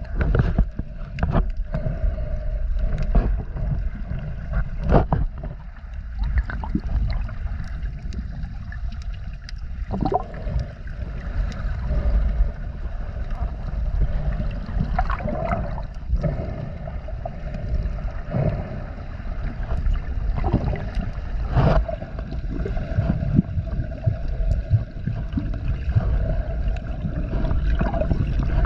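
Muffled water sloshing and gurgling heard through a chest-mounted GoPro while snorkeling underwater, with many scattered sharp clicks and knocks.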